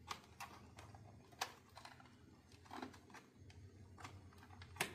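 Aluminium foil crinkling in faint, irregular clicks and crackles as hands work a thread around a foil-wrapped fish, with a few sharper snaps, one about a second and a half in and one near the end.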